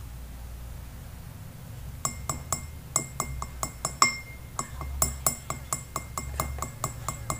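Wooden stick holding a latex-coated lure mold tapped against the rim of a glass of catalyst, with quick ringing clinks about five a second starting about two seconds in and one louder strike near the middle. The tapping knocks off excess catalyst clinging to the mold between latex dips.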